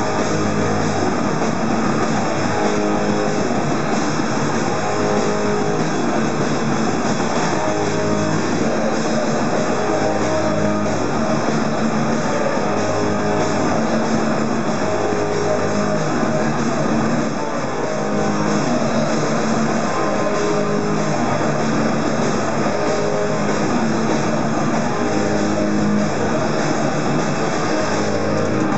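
Hardcore punk band playing live: distorted electric guitars, bass and a drum kit at full volume, with a short dip in loudness about seventeen seconds in.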